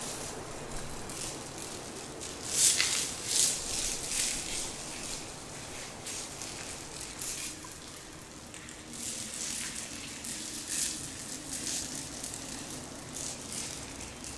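A small handheld orb shaken close to the microphone, rattling unevenly like a maraca. It is loudest about three seconds in and again around ten seconds in, over a soft steady background hiss.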